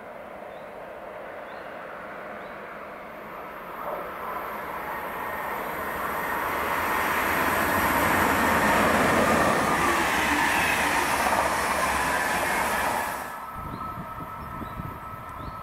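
Stadler KISS double-deck electric multiple unit passing through a station: a rushing rumble of wheels and air that builds for several seconds and is loudest in the middle. It breaks off suddenly about 13 seconds in, leaving a fainter, steady train sound as it draws away.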